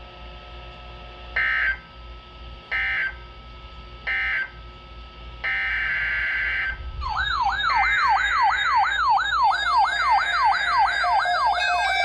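Emergency Alert System audio: three short bursts of digital data screech, the end-of-message code, then a longer data burst. A warbling, siren-like electronic alert tone follows, sweeping up and down about three times a second, with further steady electronic tones joining near the end.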